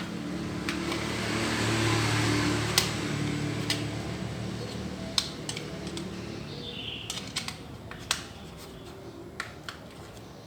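Scattered sharp clicks and taps of small objects being handled, with a rustling swell about two seconds in, over a steady low hum.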